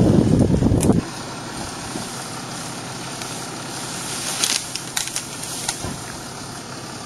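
Heavy wind buffeting the microphone for about a second, cutting off suddenly, then a steady quieter hiss with scattered crackles and clicks.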